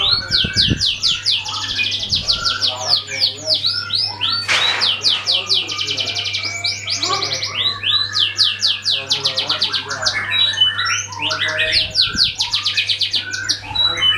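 Domestic canary singing a long song of rapid rolling trills, with runs of quick repeated notes running one into the next. A steady low hum sits underneath, and there is one short harsh note about four and a half seconds in.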